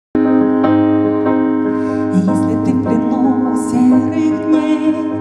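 Instrumental introduction of a song played on keyboard: sustained chords restruck about every half second at first, with brighter high sounds and a moving melody joining about two seconds in.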